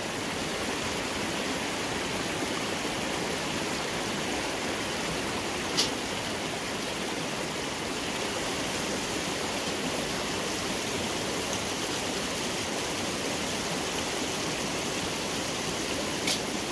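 Steady rush of a small waterfall spilling into a shallow rocky stream, with two sharp clicks, one about six seconds in and one near the end.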